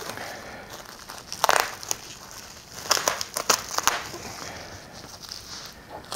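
Plastic bubble wrap crinkling and crackling as it is handled and wrapped, with the loudest bursts about a second and a half in and again around three to four seconds in.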